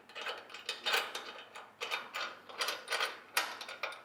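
Metal parts of a coffee roaster's cyclone assembly clicking and scraping irregularly as a fitting is unscrewed by hand and worked loose.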